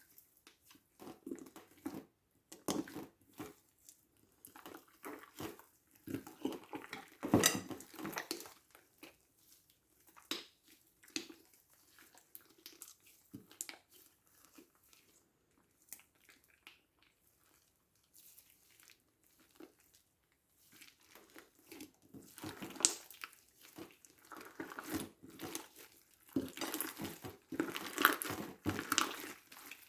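Hands kneading and squishing slime, giving irregular sticky pops, clicks and crackles, with a quieter stretch in the middle.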